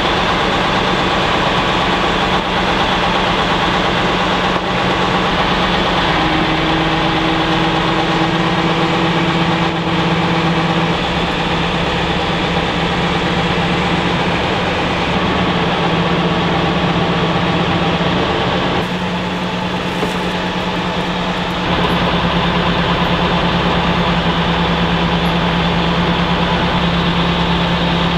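Truck engine running steadily at idle while the hydraulic crane on its bed is worked. The engine note shifts a few times: about six seconds in, and again around nineteen to twenty-two seconds.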